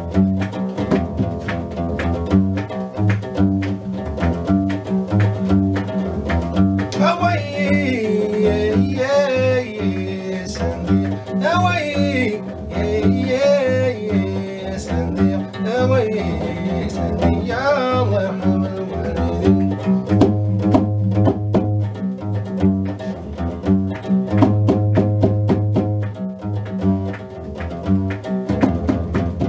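Guembri, the three-string Gnawa bass lute, plucked in a repeating low, percussive bass pattern. A man sings over it through the middle stretch.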